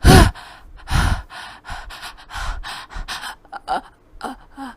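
A woman's loud, sharp gasping in-breaths, the wind-up to a big sneeze (the elephant's sneeze in the story). Two strong gasps come at the start and about a second in, then a string of shorter breathy gasps and catches.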